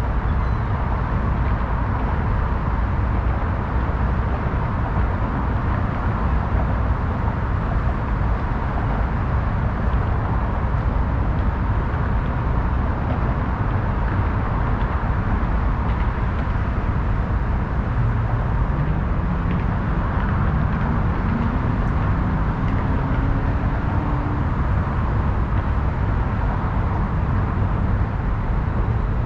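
Steady city traffic noise, an even wash of tyres and engines. Past the middle, one vehicle's engine rises in pitch for several seconds as it accelerates.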